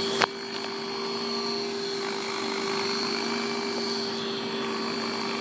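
RC helicopter with an MD 500E scale body on Align T-Rex 600 mechanics, hovering: its rotors and drive run steadily at an even pitch. A single sharp knock comes a moment in.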